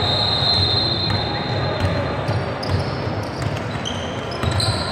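Basketball being dribbled on a hardwood gym floor, the bounces echoing in the hall, with a long high-pitched squeal in the first two seconds and short squeaks from sneakers later on.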